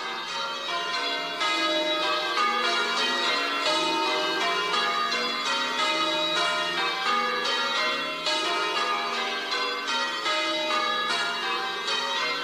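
Several church bells ringing in turn, stroke after stroke, each tone ringing on and overlapping the next; the peal gets louder about a second and a half in.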